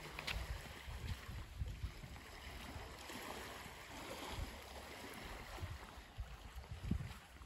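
Wind buffeting the microphone in uneven low rumbling gusts, over a faint steady hiss.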